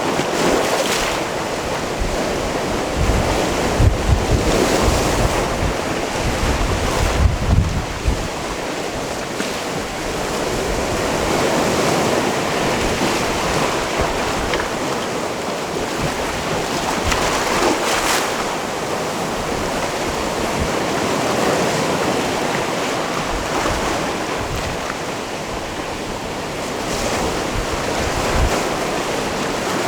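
Sea waves breaking and washing over a rocky shore, surging and easing in slow swells every several seconds. Wind buffets the microphone in low gusts through the first third.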